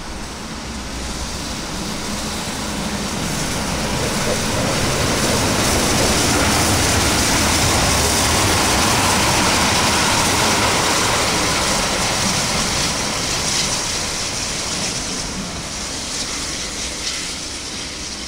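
German class 01 Pacific steam locomotive 01 0509-8 running light with its tender. The rumble of its wheels and motion grows louder as it passes close, peaking a few seconds in, then fades as it draws away.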